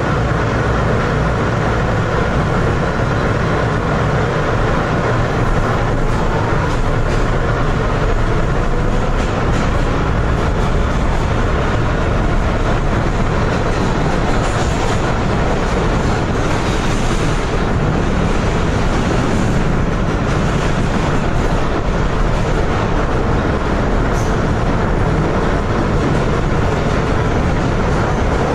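Steady running noise heard inside an R160B subway car with Siemens propulsion: wheels rumbling on the rails, unbroken and at an even level.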